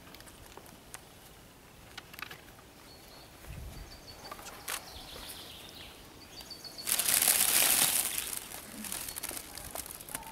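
Cellophane flower wrapping crinkling loudly for a little over a second, about seven seconds in. Short high bird chirps come before it.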